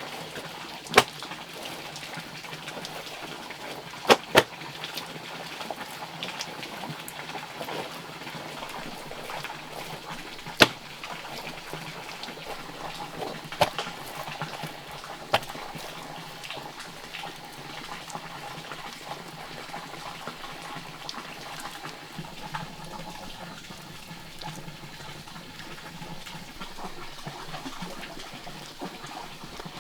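Water sounds, likely from wetting or working the clay, with a few sharp knocks or taps spread through the first half, about six in all.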